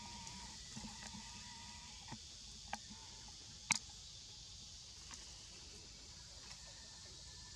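Steady, high-pitched chorus of forest insects, with a few sharp clicks or snaps, the loudest about halfway through.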